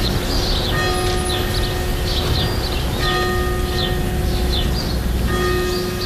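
A church bell tolling, struck about every two and a half seconds with each stroke ringing on, against short high chirps.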